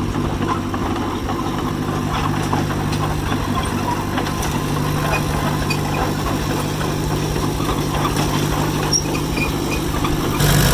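John Deere 1010 crawler's engine running at a steady speed, with faint scattered metallic clicks over it. It gets louder about ten seconds in.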